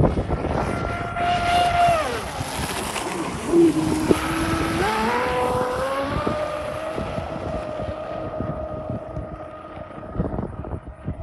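Pro Boat Zelos 48 RC catamaran's brushless motors on 8S whining at speed. The pitch falls about two seconds in, stays low for a moment, then climbs again about five seconds in and holds as the boat runs off, fading near the end, over a hiss of spray and wind gusts on the microphone.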